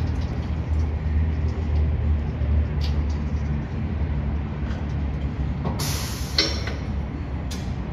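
Low, steady rumble of a 2005 Chevy Tahoe's V8 running on its new exhaust, swelling for a couple of seconds about a second in. A sharp burst of air hiss cuts in about six seconds in, with a shorter one near the end.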